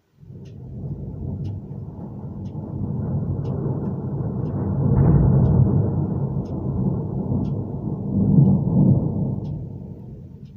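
A long roll of thunder that starts suddenly, swells to a peak and a second peak a few seconds later, then fades away near the end. Faint ticking about once a second runs underneath.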